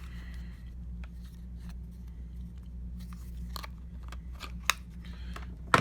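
Scattered light clicks and crinkles of small plastic parts and packaging being handled, with two sharper clicks near the end, over a steady low hum.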